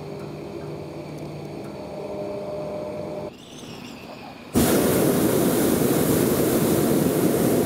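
Hot air balloon propane burner firing: a loud steady roar that starts suddenly a little past halfway and holds for about three seconds. Before it, a quieter steady low hum.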